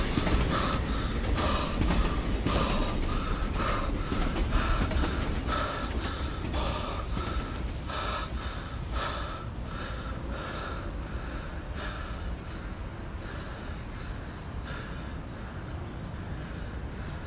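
A person panting in short, gasping breaths, about two a second, slowing and fading after a near miss with a train. Beneath them, the low rumble of the departing train fades away.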